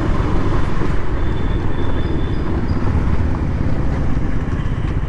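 KTM Duke 200's single-cylinder engine running steadily under way, with wind rushing over the microphone.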